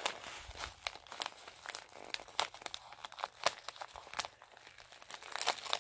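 Thin tissue wrapping paper crinkling and rustling as a wrapped parcel is handled and pulled open by hand, in irregular crackles.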